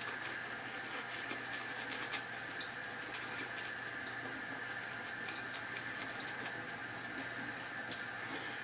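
Steady low hiss with a few faint soft ticks.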